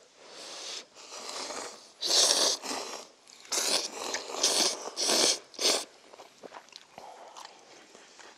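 Instant cup noodles slurped with chopsticks, a run of loud, airy sucking pulls over the first six seconds or so, then only faint chewing.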